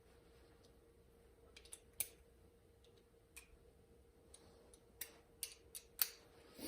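Scattered light clicks and taps of small metal footpeg parts being handled, about half a dozen, the sharpest about two seconds in and near the end, over faint room hum.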